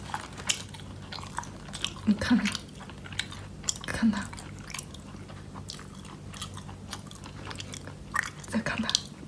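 Crispy fried chicken being pulled apart by hand and eaten: irregular crunches and crackling clicks, over a low steady hum.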